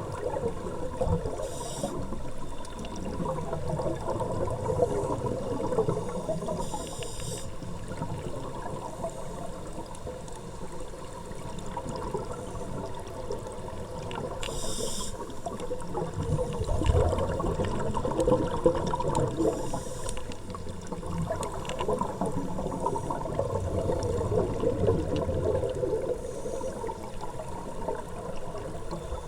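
Muffled sloshing and churning water, with a few short hissing rushes about 1.5, 7, 15 and 20 seconds in.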